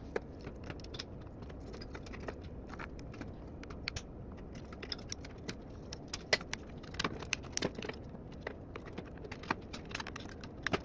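Irregular light clicks and taps of small plastic and metal parts being handled, over a steady low hiss.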